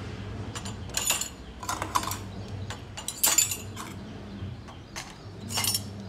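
Spoons clinking as they are dropped one by one into the slots of a dishwasher's upper-rack cutlery holder. There are sharp clinks about a second in, around two seconds, a little after three seconds and near the end, with lighter ticks between.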